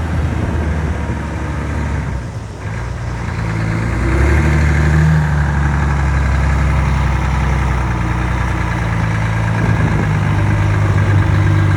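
Volvo FH truck's diesel engine running steadily with a deep exhaust note, growing louder about four seconds in and holding there.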